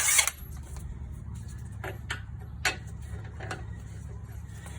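A short, harsh burst from a cordless 1/2-inch impact wrench on a 24 mm deep-well socket, then a few light metallic clicks, over a steady low hum.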